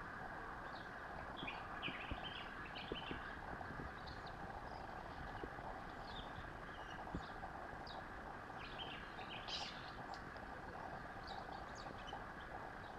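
Banded mongooses giving short, high-pitched chirping contact calls in scattered clusters, over a steady background hiss, with a few faint ticks.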